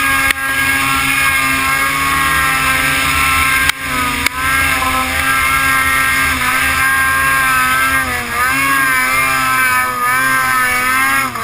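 Ski-Doo snowmobile engine running hard as the sled climbs a snow slope. Its pitch rises and falls repeatedly in the last few seconds, with two brief drops in sound about four seconds in.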